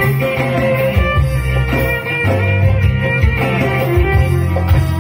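Music with plucked guitar over a steady bass line.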